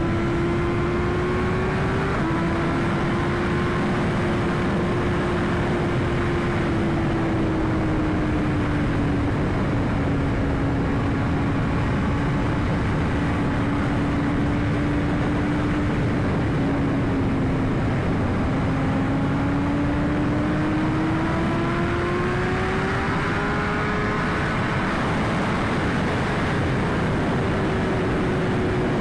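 2021 BMW S1000RR inline-four engine running at a steady cruise, with heavy wind noise over the rider's microphone. The engine note sags slowly, then climbs again a little past halfway before levelling off.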